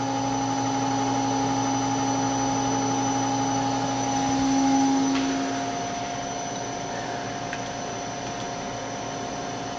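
A PM-727M mill's three-phase spindle motor runs slowly on a VFD at about 5.4 Hz output (spindle speed S500), giving a steady electric hum and whine with several constant tones. One tone dips slightly in pitch about five seconds in.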